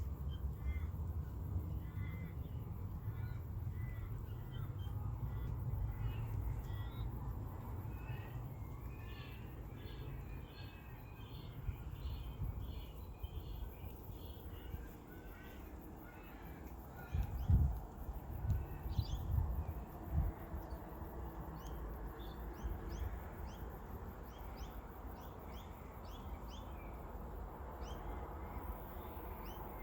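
Birds calling in a suburb: a long run of short repeated harsh calls through the first half, then high short chirps later on. Under them runs a steady low rumble, with a few louder low thumps a little past the middle.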